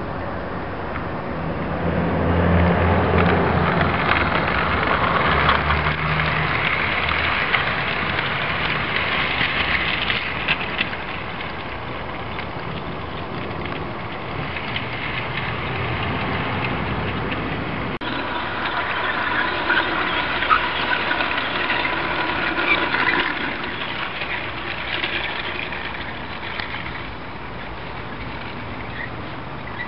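A 00 gauge model Class 50 diesel hauling freight wagons along a garden track: a steady motor hum as it passes close by, then the rattle of wagon wheels on the rails as the train runs away.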